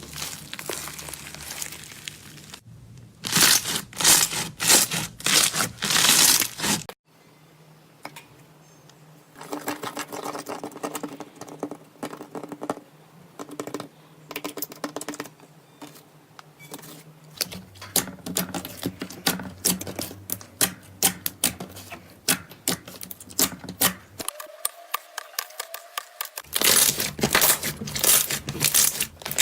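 Slime being poked and squeezed, giving rapid runs of sticky clicks, crackles and popping air pockets, changing abruptly from one short clip to the next.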